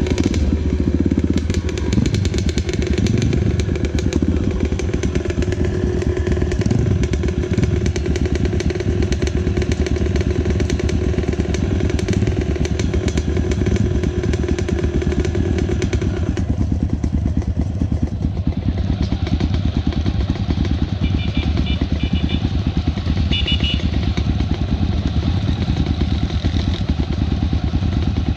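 Honda XR650 single-cylinder dirt bike engine running under the rider as the group rides along. It settles to idling at a stop about halfway through, with the other dirt bikes' engines running close by.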